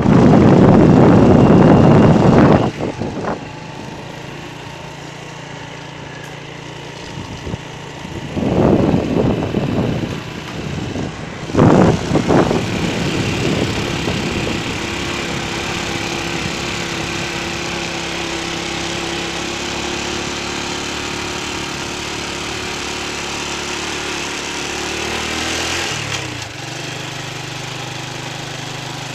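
An engine running steadily, with louder surges of noise in the first couple of seconds and again around eight and twelve seconds in.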